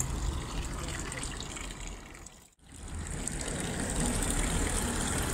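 Water trickling into a stone fountain basin, a steady splashing hiss. It fades and drops out briefly about two and a half seconds in, then comes back.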